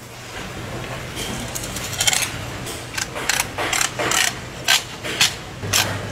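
A large knife slicing through raw tuna loin and scraping against a stainless-steel table: a run of short, sharp scrapes and swishes, several a second, starting about a second in.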